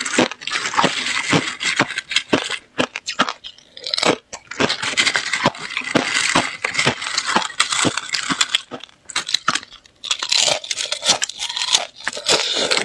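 Thin sheets of clear ice crackling and snapping as they are broken up by hand in a silicone mold and crunched while eaten, in three dense stretches with short pauses about three and a half and nine and a half seconds in.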